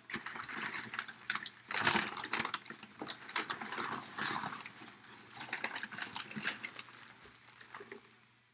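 Clear plastic bag crinkling and packing paper rustling in irregular crackly bursts as a boxing glove is handled and pulled out of its cardboard box, dying away near the end.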